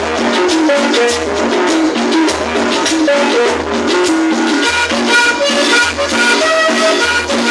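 Cumbia music playing loud through a sonidero sound system: a deep bass note about once a second under an even percussion pattern and a melody line.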